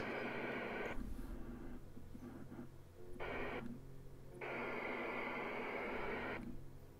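CB radio static hiss from the speaker, starting and stopping in blocks: it cuts off about a second in, returns briefly a little after three seconds, runs again for about two seconds in the second half, and comes back in a short burst near the end. A low steady hum runs underneath. The hiss switching on and off goes with the Binatone 5 Star being keyed and unkeyed during a transmit test against another radio.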